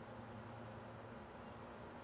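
Faint steady background hiss with a low hum underneath and no distinct sound events: quiet room tone.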